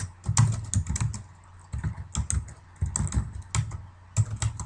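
Computer keyboard typing, keystrokes coming in several quick bursts with short pauses between them.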